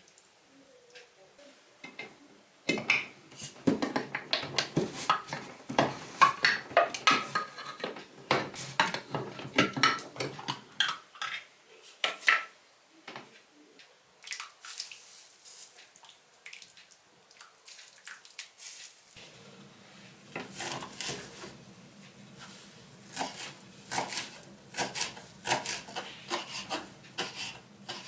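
Kitchenware clattering and clinking: metal utensils knocking against pots and dishes in irregular bursts, some strikes ringing briefly. There is a quieter stretch in the middle.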